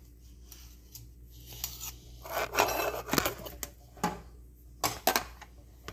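A spoon scraping and rubbing through thick shea butter in a bowl, starting about two seconds in, then a few sharp clicks near the end.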